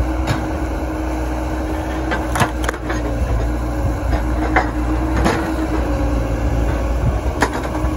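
Bobcat S160 skid steer's diesel engine running steadily under hydraulic load while its homemade overhead wedge splitter drives down through a log. Several sharp cracks and snaps of the wood splitting come at intervals over the engine.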